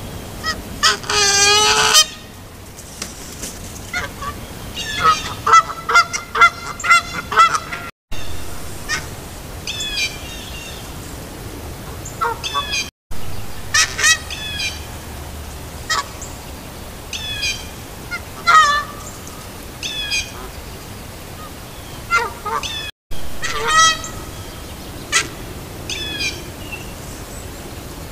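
Canada geese honking over and over at a red fox close by, in quick runs of several honks separated by pauses of a second or two. The sound drops out completely three times for an instant where trail-camera clips join.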